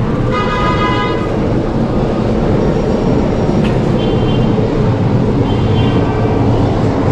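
Steady, loud urban street noise, a low traffic-like rumble, with a brief high-pitched tone near the start and two fainter short tones later.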